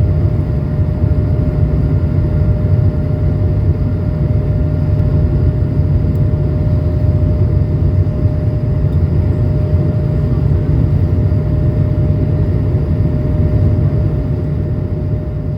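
Cabin noise of an Airbus A220-300 in its climb after takeoff: a steady, deep roar from its Pratt & Whitney PW1524G geared turbofans and the airflow, with a faint steady tone above it, easing slightly near the end.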